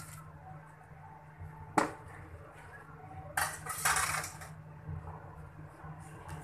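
Raw mango pieces tipped from a perforated steel colander into a kadhai, clattering against the metal: one sharp clack about two seconds in and a second, longer clatter of pieces tumbling into the pan a little past the middle.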